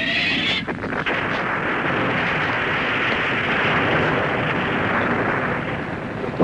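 Television sound effects: a rising whistle that ends about half a second in, then a long, steady rushing rumble of noise.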